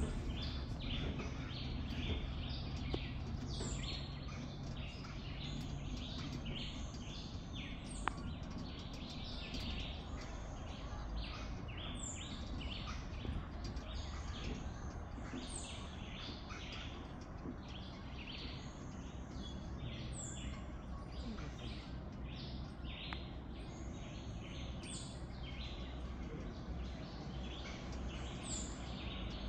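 Birds chirping in the forest canopy, many short high calls repeating irregularly, over a low steady rumble.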